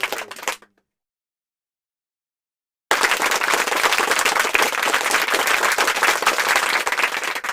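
Stock applause sound effect: a crowd clapping, cutting in suddenly about three seconds in after a gap of dead silence and running on for about five seconds.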